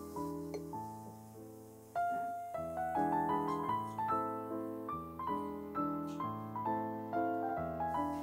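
Background piano music, a melody of single notes over changing chords.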